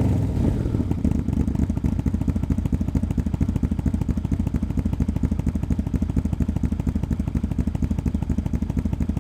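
Yamaha V-Max 1200's V4 engine idling through a Supertrapp muffler with all its discs removed, a near straight-pipe setup, giving a steady, evenly pulsing exhaust beat with a deep low end. The revs settle back down to idle at the very start.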